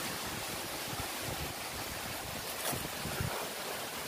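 Wind rushing steadily over the microphone, with a few soft thuds.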